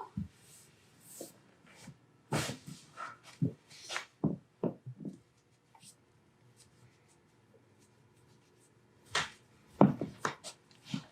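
Hands working a patient's foot and toes: short soft clicks and knocks in two clusters, about two seconds in and again near the end, without clear joint pops.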